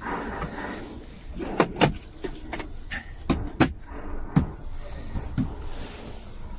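Hard plastic clicks and knocks from a truck cab's centre-console storage bin being handled, its lid and parts opened and shut, about six sharp knocks in all, some in quick pairs.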